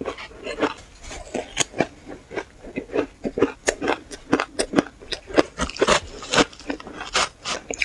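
Powdery shaved ice being bitten and chewed close to the microphone: a quick, irregular run of crisp crunches, several a second.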